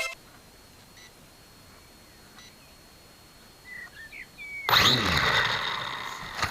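Faint outdoor background with a few short bird chirps, then a sudden loud rushing noise about two-thirds of the way in that slowly fades.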